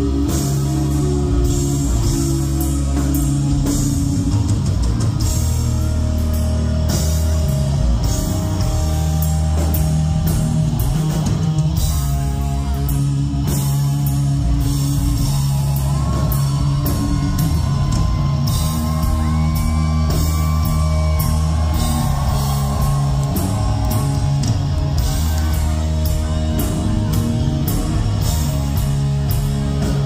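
Heavy metal band playing live: electric guitar, bass and drum kit, with a lead line sliding in pitch about halfway through.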